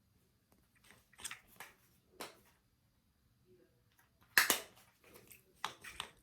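Short, irregular bursts of rustling and crinkling handling noise close to the microphone, the loudest about four and a half seconds in.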